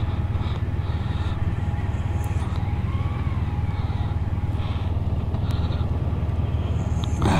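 Motorcycle engine running at low revs, a steady low drone as the bike moves slowly. There is a brief louder rush near the end.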